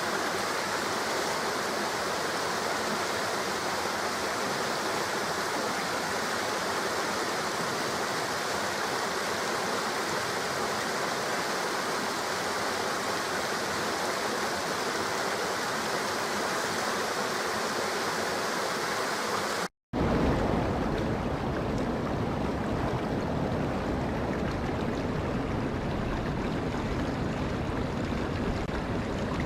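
Steady rushing of flowing water. Just past the middle it cuts out for a split second and a different stretch of rushing water takes over, deeper and less hissy than the first.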